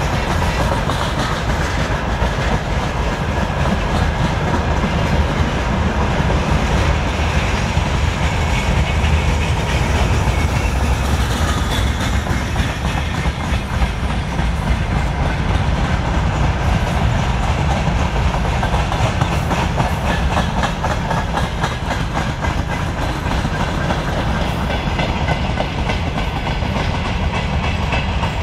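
Freight wagons (tank cars, open wagons and grain hopper cars) rolling past at speed. It is a steady loud rumble with a continuous run of wheel clicks on the rails.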